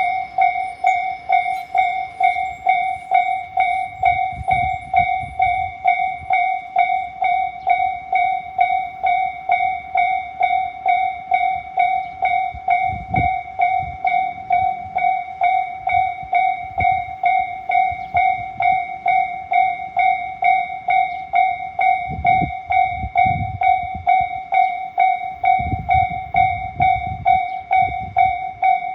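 Japanese railway level-crossing warning bell ringing its repeating electronic clang, about two even strokes a second, the strokes staying in step with no drift between bells. Low rumbles come and go a few times underneath.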